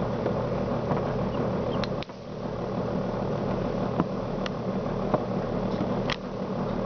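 Steady mechanical hum of a running chick incubator, with a few faint short ticks scattered through it.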